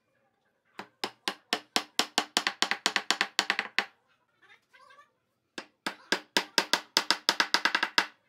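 Mallet knocking the top of a wooden stool leg, driving it into a hole in the round wooden seat: two runs of quick, sharp knocks, about four a second, with a short pause before the second run about five and a half seconds in.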